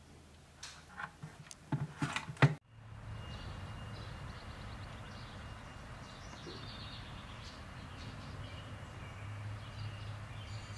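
Plastic clicks and knocks of an old corded telephone handset being handled, the loudest knock about two and a half seconds in. Then a steady outdoor background hiss with a low hum, and small birds chirping over it.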